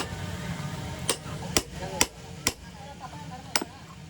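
Hammer blows, about six sharp separate knocks at an uneven pace, over a steady low hum.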